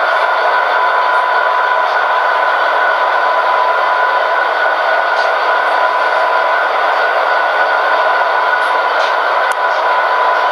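Sound decoders in several model EMD diesel locomotives playing the idle sound through their small onboard speakers: a steady, thin engine drone with no deep bass.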